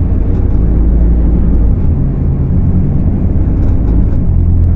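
Scania K250UB city bus's diesel engine running while the bus drives, a heavy low drone whose pitch shifts slightly a couple of times.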